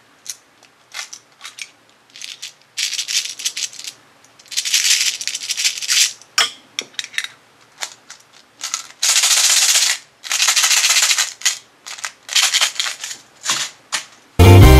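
Thin plastic wrapping crinkling in short bursts as a small toy is unwrapped from a lump of modelling clay, with light clicks and taps between. Loud music starts abruptly near the end.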